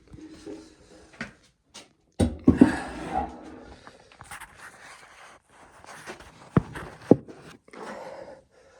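Handling noise from the camera being picked up and carried: scattered rustling and knocks, loudest as a cluster about two seconds in, with two sharp clicks near the end.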